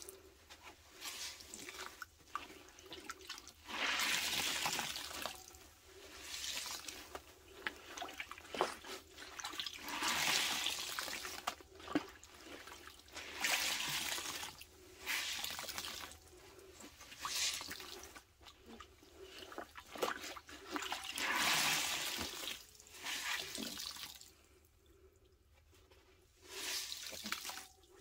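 Soaked porous sponges squeezed by hand over a stainless steel bowl of liquid: repeated wet squelching and liquid pouring and splashing into the bowl. Each squeeze lasts a second or two, with short pauses between, and there is a quieter stretch near the end before one more squeeze.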